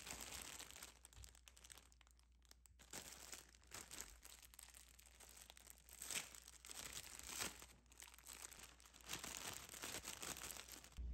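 Faint, irregular crinkling of a plastic produce bag of kale as it is handled and opened.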